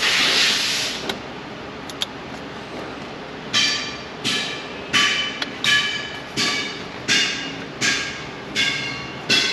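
A short burst of hissing noise at the start, then from about three and a half seconds in a steady run of sharp metallic taps, roughly one and a half a second, each ringing briefly.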